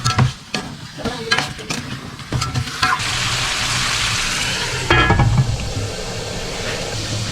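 Food sizzling in a pan while a utensil stirs it, knocking and scraping against the pan in the first few seconds; from about three seconds in the sizzle runs steadily, with a brief clatter of the utensil about five seconds in.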